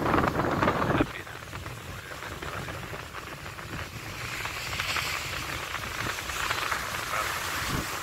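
Sea surf breaking and washing over shoreline rocks, a steady hiss that swells twice. Wind buffets the microphone for about the first second, then drops off suddenly.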